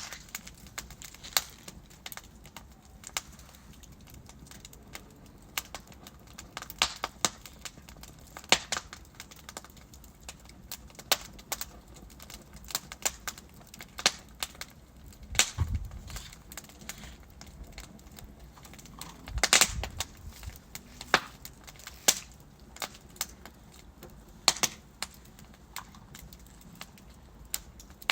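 Wood fire burning in a fireplace, with logs crackling in irregular sharp snaps and pops over a faint hiss. Two louder, deeper pops come about halfway through and about two-thirds of the way through.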